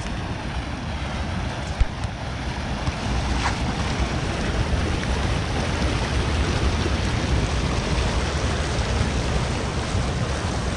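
Wind rumbling on the microphone over a steady wash of ocean surf, with a single sharp knock about two seconds in.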